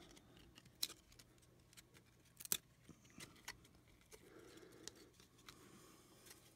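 Hockey trading cards being handled and flipped through by hand: faint sliding with a few short, sharp clicks, the sharpest about two and a half seconds in.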